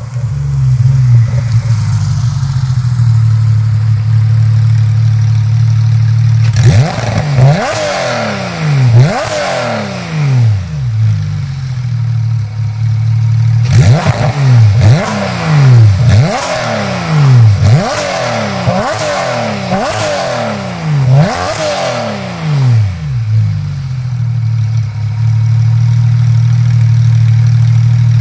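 Porsche 991.2 GT3's 4.0-litre flat-six, fitted with Dundon long-tube headers and a "Loud" centre muffler with the exhaust valves held open, idling loudly and steadily. About a quarter of the way in, two quick throttle blips send the revs shooting up and falling back. A little past the middle comes a longer run of quick blips, and then it settles back to idle.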